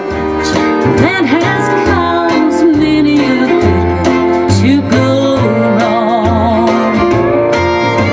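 Bluegrass song playing: a singer's wavering melody over plucked acoustic guitar and stepping bass notes.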